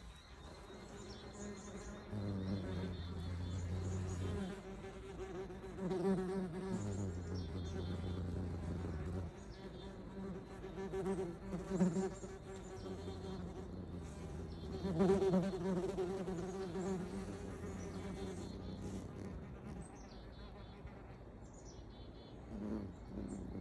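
Yellowjacket wasp buzzing its wings close to the microphone: a steady hum that swells louder several times.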